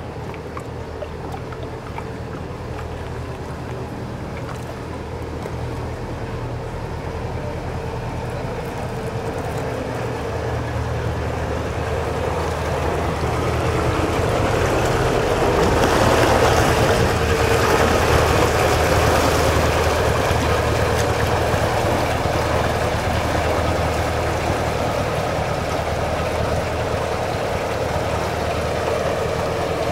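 Canal narrowboat's diesel engine running steadily at low speed, with churning water from the propeller, growing louder to a peak about halfway through as the stern passes close, then easing slightly.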